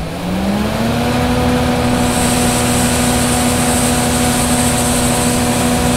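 Sampo Rosenlew plot combine's engine revving up over the first second, then running steady at raised revs to drive the unloading auger. From about two seconds in, a steady hiss of harvested beans pouring from the auger spout into a hopper is added.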